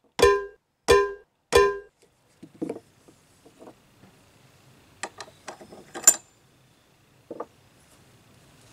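Wooden mallet knocking a workpiece clamped in a bench vise: three hollow, pitched knocks about two-thirds of a second apart. After that come scattered small clicks and clinks of a hand tool and small metal parts being handled, the sharpest a little past the middle.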